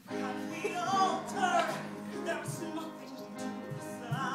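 Live singing with piano accompaniment: a solo voice sings a slow, sustained melodic line over held piano notes.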